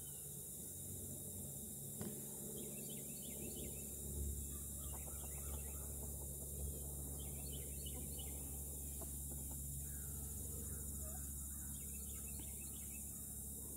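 Outdoor yard ambience: birds chirping here and there over a steady low hum, with a few soft bumps.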